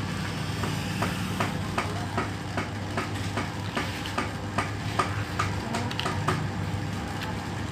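Homemade glitter slime being squeezed and pulled by hand, making a run of small sticky clicks and pops a few times a second over a steady low background hum.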